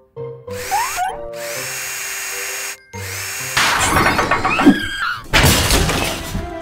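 Cartoon cordless drill whirring as it spins off a truck's wheel nuts, in two long bursts with a short break about three seconds in; the second burst is louder. Light background music plays underneath.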